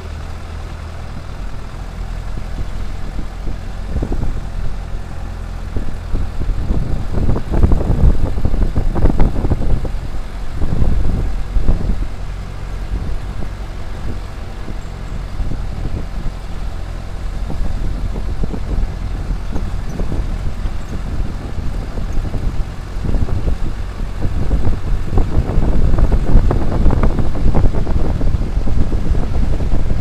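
A jeep driving, heard from on board: a steady low engine hum with road and wind noise, growing into a louder, rougher rumble about a quarter of the way in and again for the last several seconds.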